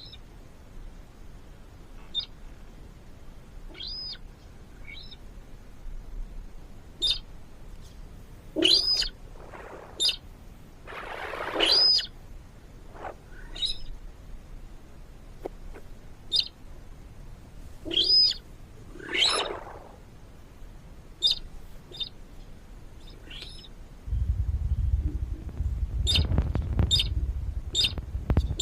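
Bird calls: repeated short, high chirps, some arching up and down in pitch, with a few longer, louder calls among them. A low rumble comes in about four seconds before the end.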